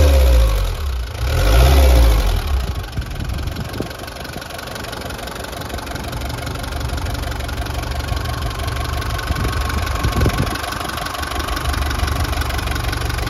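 1997 Isuzu Elf 150's diesel engine coming down from a rev, revved once more, then settling about two seconds in to a steady idle. A single brief louder knock comes near the end.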